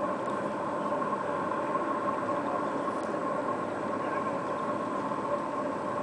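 Outboard motor on a small boat running steadily on the river, an even drone with no change in pitch.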